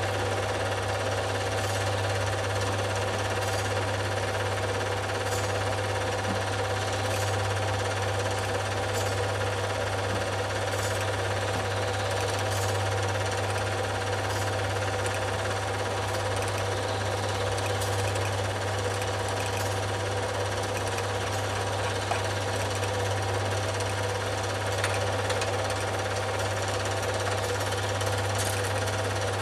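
Film projector running: a steady mechanical rattle over a constant low hum.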